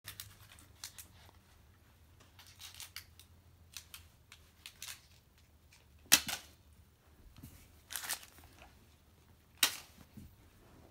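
Scattered sharp clicks and light knocks on a wooden floor. The two loudest come about six and nine and a half seconds in.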